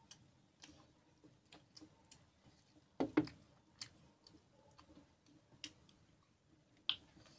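Quiet eating by hand: scattered small clicks and smacks of chewing and of fingers working rice on steel plates, with a louder knock about three seconds in and a sharp click near the end.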